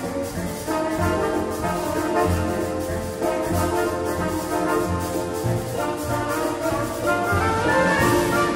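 A small band with a horn section of saxophones and trumpet playing sustained chords in harmony over a bass line.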